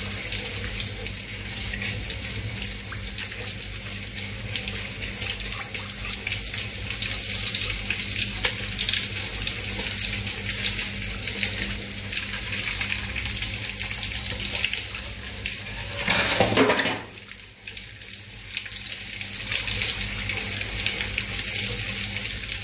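Hot cooking oil in an aluminium wok sizzling, a steady crackling hiss as it heats up with salt stirred into it, small bubbles forming at the edges of the pan. About two-thirds of the way through there is a brief louder burst, after which the sizzle drops away and slowly builds back.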